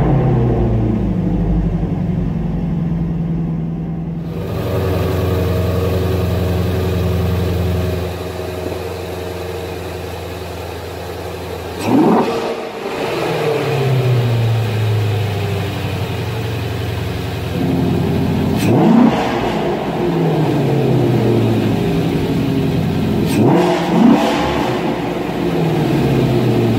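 2017 Ford Shelby GT350R's 5.2-litre flat-plane-crank V8 idling and being blipped four times: the revs shoot up and fall back to idle each time, the last two blips in quick succession.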